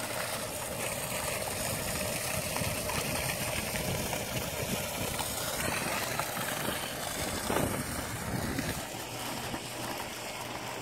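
Water pumped through a pipe over the bank pours steadily into the pond and splashes on the surface, with a steady mechanical hum underneath.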